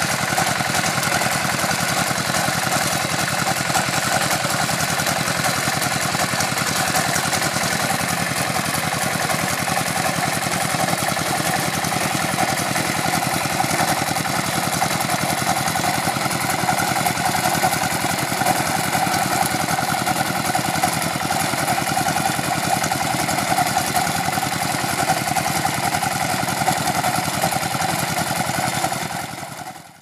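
Walk-behind double-drum vibratory roller running steadily, its engine going at an even pace as it rolls over a crushed-stone track. The sound fades out in the last second.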